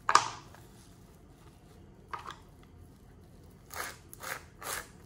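Kitchen knife chopping fresh coriander leaves on a plastic cutting board: one cut about two seconds in, then a run of slicing strokes near the end, about two a second. A sharper knock right at the start is the loudest sound.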